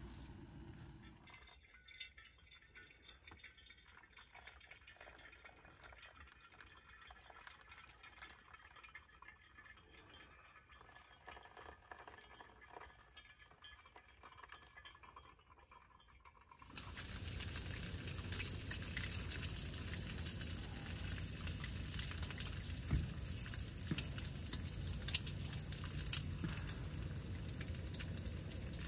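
Quiet stretch of small clicks and a faint hiss as water is heated on a Jetboil stove and poured into a pour-over coffee dripper. A little over halfway through, a louder steady sizzle of food frying in a pan on a two-burner propane camp stove takes over.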